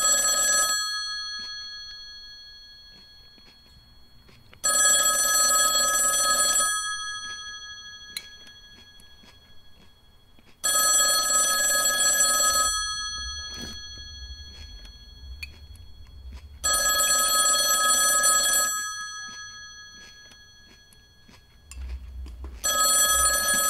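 Desk telephone ringing: rings about two seconds long, repeating every six seconds.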